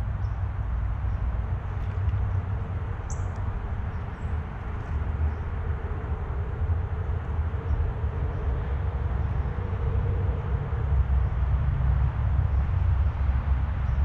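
Uneven low outdoor rumble throughout, with a faint steady hum through the middle and a single short high bird chirp about three seconds in.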